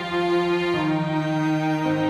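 Background music: held pitched notes that change chord twice.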